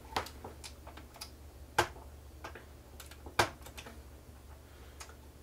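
Scattered light clicks and ticks of a small metal screwdriver tip working at a ZIF ribbon-cable connector latch on a circuit board, two of them sharper, about two and three and a half seconds in.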